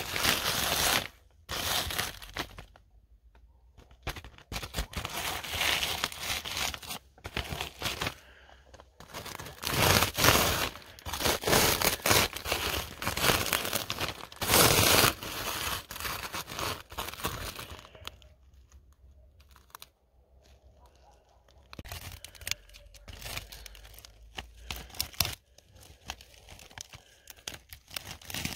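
Flat metal blade scraping a thick layer of frost and ice off a smooth surface, in repeated strokes of varying length with a couple of short pauses.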